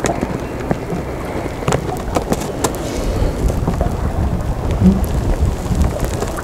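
Wind rumbling on the microphone aboard a small fishing boat at sea, with scattered knocks and clicks.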